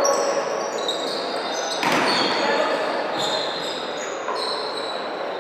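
Volleyball game in a large indoor hall: a ball impact about two seconds in and a weaker one about a second later, over a steady murmur of crowd voices, with short high squeaks.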